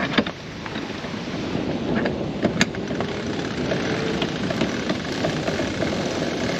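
Steady rush of wind and water aboard a sailboat under sail, with wind buffeting the microphone and a few sharp clicks from the deck gear.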